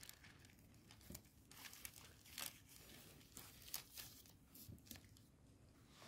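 Thin plastic covering faintly crinkling and rustling as it is pulled off a plastic food box, in a string of short rustles.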